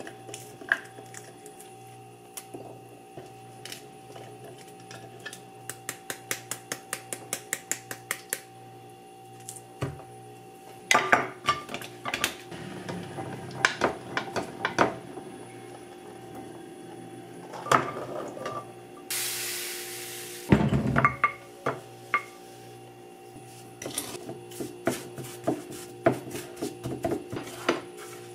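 Kitchen food-prep sounds: pomegranate arils dropping into a plastic measuring cup with quick light ticks, then being scraped out with a wooden spoon into a glass bowl with loud clinks. Near the middle there is a short hiss, then a wooden spoon knocks against glass containers while stirring sugar into the fruit.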